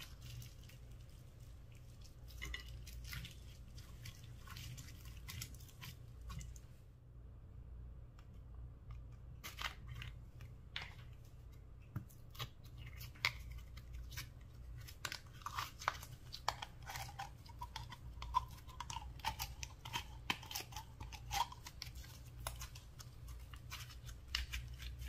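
Hands squishing and kneading slime: wet crackles and small pops, with a short lull about a third of the way in. In the second half there is a drawn-out, wavering squelch as slime is squeezed from a tub.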